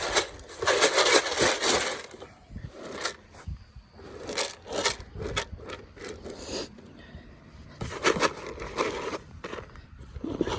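Damp chicken layer feed being stirred in a container, an irregular scraping and rubbing that comes in uneven strokes.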